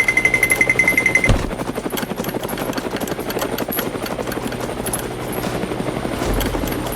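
An engine runs steadily with a rapid, even chugging pulse. A steady high tone sounds over it for about the first second.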